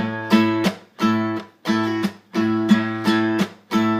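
Guitar strumming chords in a steady rhythm, each chord held briefly and then cut off before the next, with no singing.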